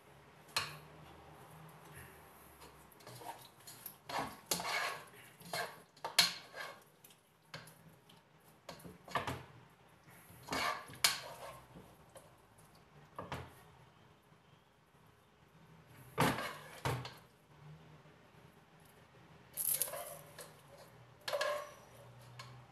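A utensil scraping, knocking and clinking inside a cooking pot as roasted potatoes and carrots are scooped out, in irregular clusters of taps and scrapes. A couple of louder knocks near the end ring briefly.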